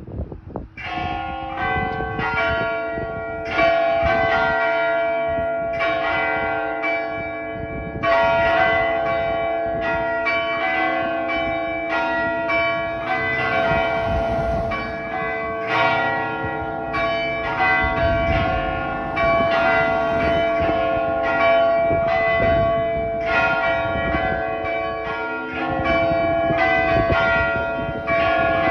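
Several church bells pealing together, about a second in, struck over and over with overlapping tones that linger between strikes.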